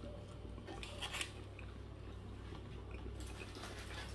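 Faint close-up chewing of a burger, with a few soft clicks and rustles, over a low steady hum.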